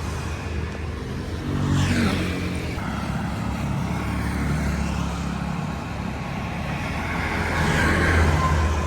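Street traffic: a steady engine hum, with one vehicle passing close about two seconds in and another near the end.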